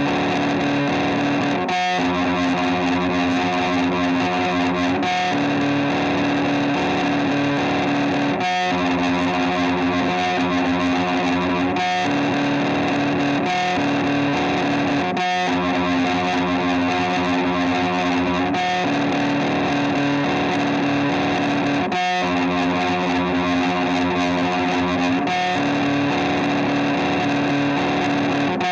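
Music: a droning, distorted electric guitar with effects, playing sustained held notes that change every couple of seconds in a repeating cycle.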